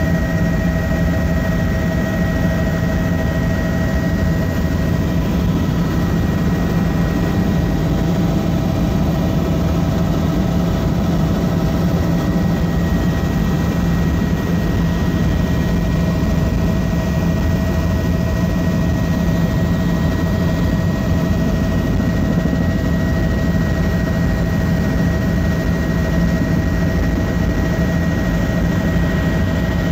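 Helicopter in steady flight heard from inside the cabin: an unchanging drone of engine and rotor noise, with a low steady hum and a few higher steady whining tones over a rushing noise.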